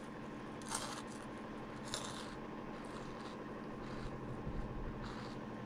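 Crunchy snack being chewed, a couple of short crunches about a second apart, over a faint steady hum.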